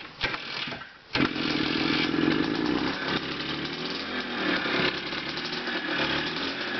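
1975 Harley-Davidson 125 MX's single-cylinder two-stroke engine starting from stone cold, catching suddenly about a second in, then running.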